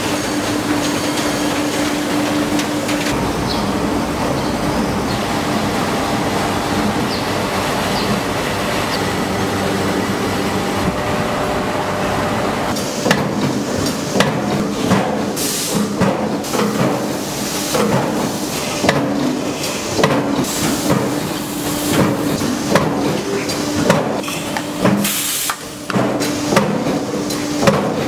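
Tennis ball factory machinery running with a steady hum and rush. From about halfway, irregular sharp knocks and clanks of machines working come in over the hum.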